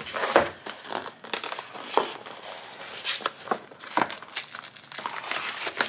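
A printed cardboard product box being pulled apart by hand, with irregular crinkling and tearing crackles.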